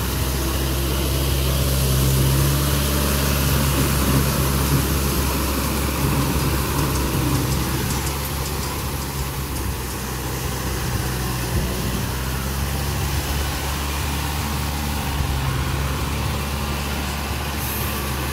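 Yanmar YM351A tractor's diesel engine running steadily under load as it drags a rotary tiller through a flooded paddy field.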